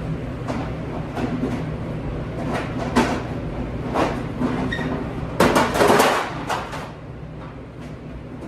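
Dishes and kitchenware clattering as they are handled: scattered knocks and clinks, with a dense burst about five and a half to six seconds in, over a steady low machine hum.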